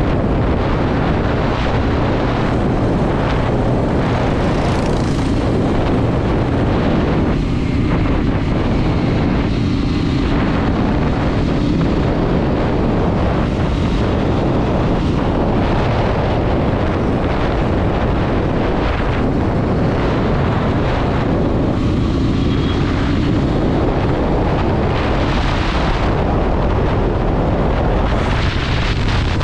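Sport motorcycle riding at speed: heavy wind rumble on the microphone over the steady engine note.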